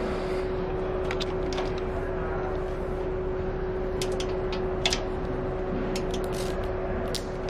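A steady machine hum holding one constant tone, with scattered small clicks of plastic and metal as the cable drag chain is handled and a screw in its bracket is turned with a hex key. The sharpest click comes about five seconds in.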